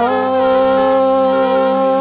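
Male singer holding one long steady note in Arabic gambus music, with the oud and the rest of the band behind him.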